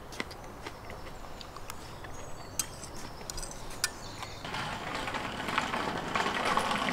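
Light clicks of cutlery on plates. About four and a half seconds in, a rattling noise sets in and grows louder: a child's scooter rolling over paving stones.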